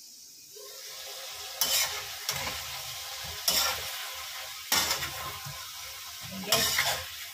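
Parboiled chicken pieces sizzling in a metal wok, with a metal spatula scraping and turning them in about five loud strokes over a steady frying hiss.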